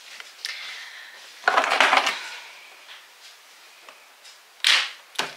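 Cosmetic containers clattering and knocking in a vanity drawer as they are handled and sorted: a rattling clatter about a second and a half in, then a sharper knock near the end.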